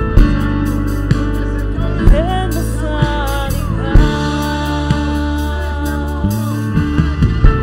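Live worship band playing slow music: held keyboard chords and guitar under strong beats about every two seconds, with a man's voice singing over it.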